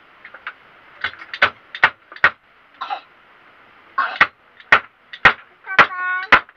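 Hammer blows on wood as a wooden bed frame is repaired: irregular sharp knocks, some in quick clusters of two or three. A short pitched, voice-like sound comes near the end.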